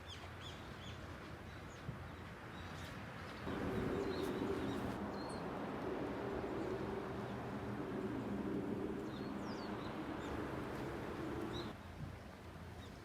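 Small birds chirping on and off over a steady background hiss. About three seconds in, a louder low, steady hum starts abruptly and cuts off shortly before the end.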